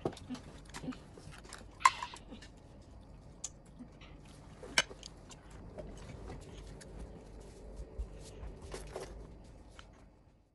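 Tableware clinking as food is dished out: a serving spoon tapping and scraping in a glass bowl and small bowls knocking together, in a few sharp clicks, the loudest about two seconds in and just before five seconds.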